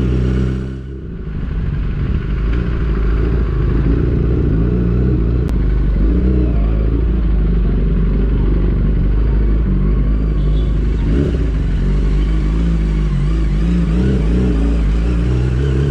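Yamaha R6's 600 cc inline-four engine running while riding at low speed. A steady idle is heard at the start and again near the end, with rougher engine and road noise in between.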